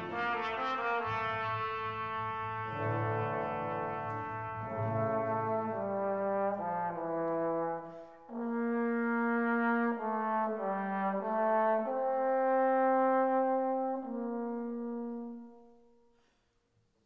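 Background music: a slow melody of long held notes that dips briefly about halfway through, then fades out near the end.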